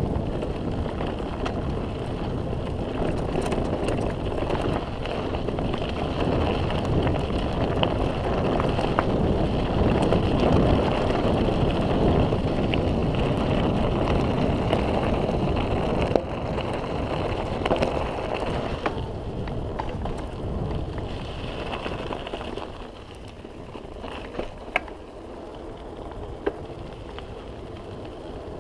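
Mountain bike rolling fast downhill on a dirt road: wind rushing over the microphone and tyres rumbling on the loose surface, with a few sharp knocks and rattles from the bike. The rush drops off noticeably about 22 seconds in.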